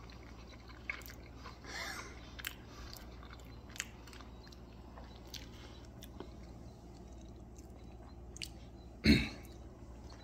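A man chewing a mouthful of cheesy macaroni, with faint scattered mouth clicks. One short, loud vocal sound from the throat comes about nine seconds in.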